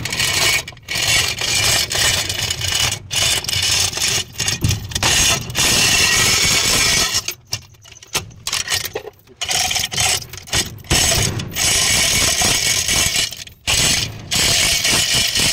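Manual chain hoist being worked by its hand chain under a truck transmission: steel chain rattling through the block and the ratchet pawl clicking, in runs with short pauses.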